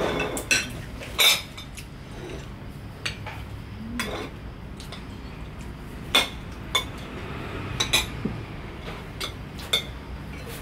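Metal spoons and forks clinking and scraping against ceramic plates and bowls as several people eat, in irregular sharp clinks, the loudest about a second in and around six seconds in.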